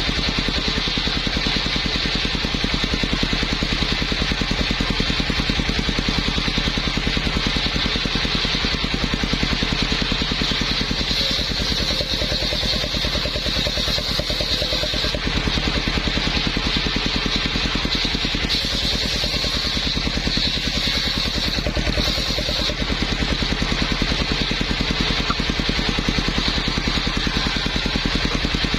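Engine-driven circular saw running steadily, the engine beating fast and evenly under a steady higher hiss.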